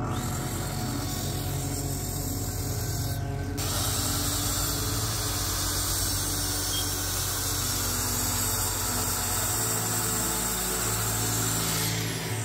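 A power tool running steadily over background music, getting louder about three and a half seconds in and stopping near the end.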